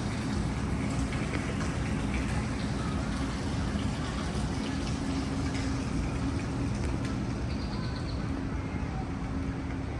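Steady outdoor ambience: a continuous rushing hiss with a low hum beneath it.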